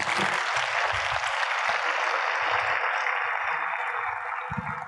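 Audience applauding: a dense, steady clatter of many hands clapping that begins at once and tapers off near the end, with faint low thumps underneath.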